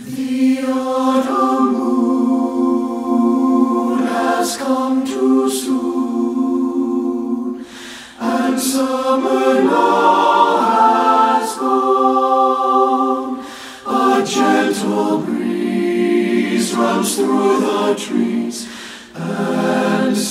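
Mixed SATB choir singing in rich a cappella harmony, with no accompaniment. It sings in sustained phrases, with brief breaks between them about 8, 14 and 19 seconds in.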